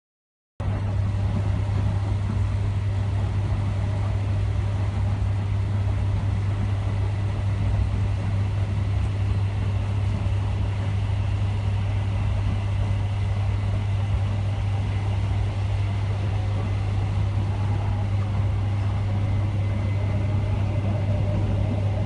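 Inside a moving Great Northern electric passenger train: a steady running rumble with a strong, constant low hum. It starts abruptly about half a second in and holds level throughout.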